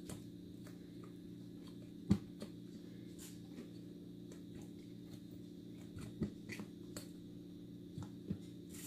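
A plastic lid being pressed down around the rim of a stainless steel mixing bowl: scattered soft clicks and snaps, the sharpest about two seconds in, over a steady low hum.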